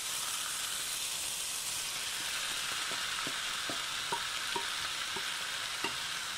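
Ground meat sizzling steadily in a frying pan, with a scattering of light ticks as diced squash is tipped in from a bowl.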